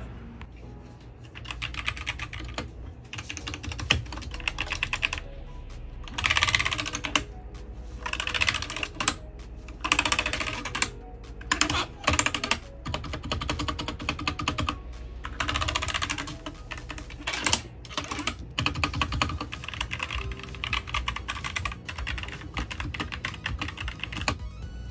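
Typing on a Royal Kludge RK68 mechanical keyboard with red linear switches: fast runs of key clicks in bursts of a second or two, with short pauses between.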